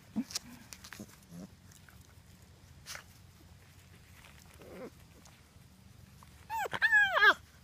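Labrador Retriever puppy yelping: several high, arching yelps in quick succession near the end, after a faint short whine about halfway.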